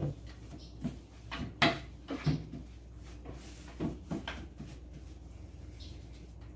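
A series of knocks and clunks, about nine in the first four and a half seconds, as groceries and containers are handled in a kitchen cupboard, with a faint low hum underneath.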